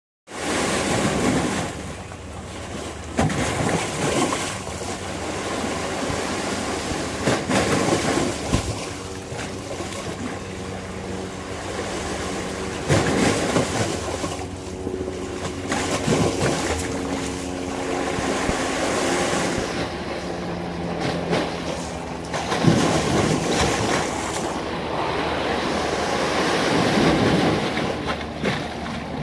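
Sea waves breaking and washing, in swells every few seconds. Through the middle there is a faint steady hum like an engine.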